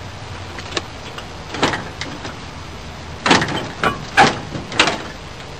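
Old pickup truck's steel cab door being worked loose from the cab by hand: a handful of separate metal scrapes and clunks a second or so apart, some with a brief squeak.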